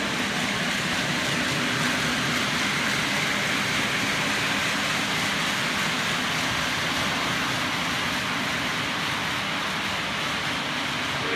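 Model train running along shelf-mounted track, a steady rumble of wheels and motor with no letup.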